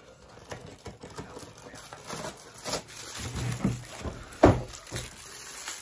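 A cardboard advent calendar being handled: scattered light taps and rustles, with one sharp knock about four and a half seconds in.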